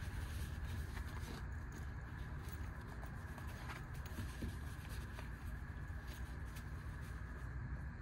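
Faint handling of a fabric EDC pouch, with a few soft clicks and rustles, over a steady low background hum.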